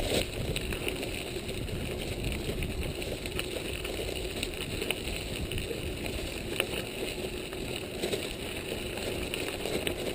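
Mountain bike being ridden: a steady rumble of tyres and air over the microphone, with occasional short rattles and clicks from the bike.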